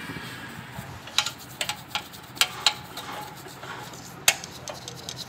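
Scattered sharp metal clicks and taps from hand tools and parts on a motorcycle's front sprocket and drive chain, about six over a few seconds, the loudest about four seconds in.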